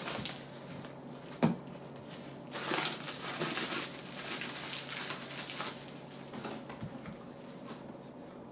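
Bubble wrap and plastic packaging crinkling in bursts as a battery pack is unwrapped by hand, with one sharp click about a second and a half in.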